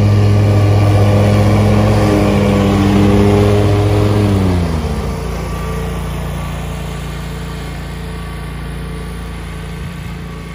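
Ferris ISX 2200 zero-turn mower's Kawasaki FT730EFI V-twin gas engine running at high speed as the mower drives. About four and a half seconds in, the engine speed drops sharply. It then runs at a lower steady speed and fades as the mower moves away.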